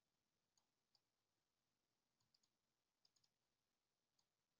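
Near silence, broken by faint computer mouse clicks in small groups of two or three.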